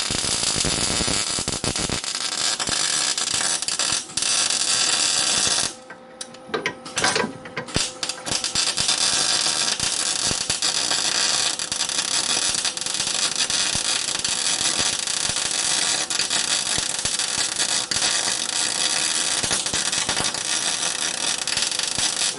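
Electric arc welder crackling steadily as a broken weld on a snowmobile's steel chassis is re-welded. The arc stops about six seconds in, strikes again in a few short bursts, then runs on steadily.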